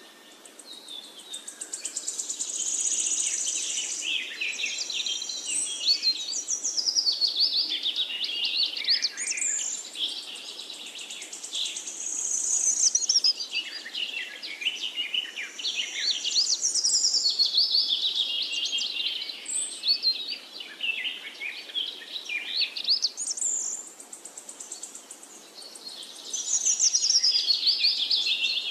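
Birds singing: a dense run of high chirping, gliding calls, easing off briefly near the end before picking up again.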